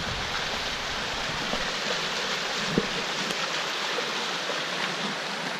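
Fast-flowing river running over rocks just below: a steady rush of whitewater, with one light knock a little under three seconds in.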